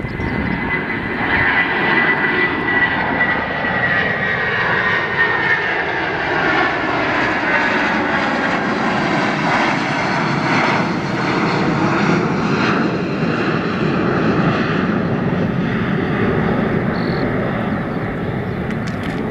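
Boeing 757-300 airliner's twin jet engines at takeoff thrust as it climbs out: a loud, steady, rough jet noise, with a whining tone that falls slowly in pitch over the first several seconds as the plane passes.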